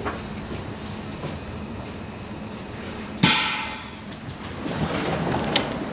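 Hamburg U-Bahn DT3 train at a station, a steady rumble and hiss. About three seconds in there is a single sharp metallic clang that rings on for about a second. Near the end the noise swells and there is one more click.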